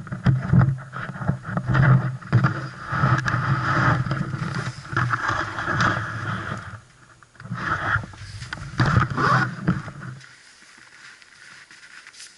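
Polaris Indy Sport 340 snowmobile's two-stroke engine running at idle, mixed with knocks and rubbing from the action camera being handled. The engine sound drops away about ten seconds in, leaving only faint outdoor background.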